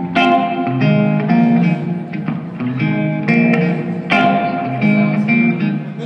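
Electric guitar played through a stage amplifier, picking out a melody in distinct ringing notes, roughly one or two a second.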